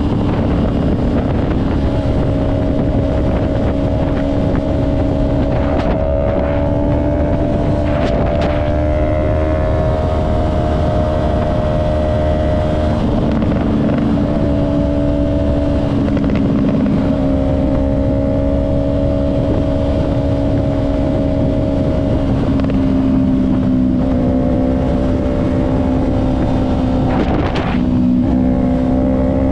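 2023 Yamaha R3's parallel-twin engine through an M4 Street Slayer exhaust, running at a fairly steady cruise, its pitch stepping down and back up a few times, over wind noise on the microphone.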